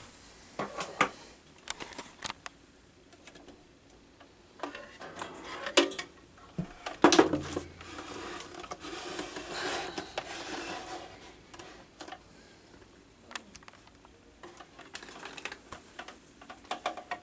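Handling noise from a plastic table fan being turned and moved: scattered clicks and knocks, with a stretch of rubbing and rustling about seven seconds in.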